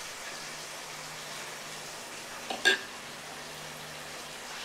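Pompano frying in a pan of oil, a steady low sizzle; about two and a half seconds in, a single short sharp sound cuts in over it.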